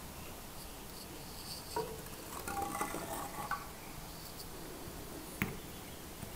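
Faint handling of a water-filled graduated cylinder: a knock, then about a second of water trickling and gurgling with small clinks, and a single sharp click near the end.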